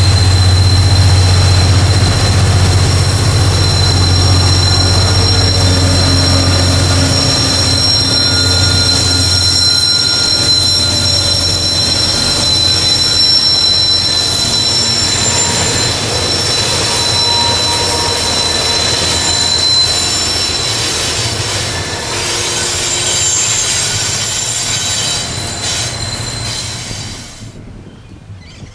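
Freight train passing on a curve: the lead diesel-electric locomotives (an AN DL-class first) run with a loud low drone for the first several seconds. Then the wagons' wheels squeal on the curve with steady high-pitched tones under the rolling rumble. The sound drops away suddenly just before the end.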